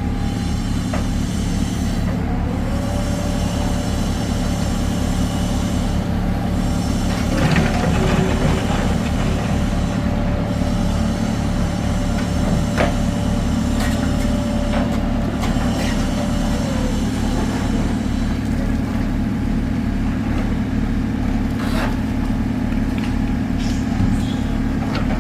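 Heavy diesel engine of an excavator running steadily at a construction dig, with a steady higher whine from about two seconds in until about seventeen seconds, and a few knocks.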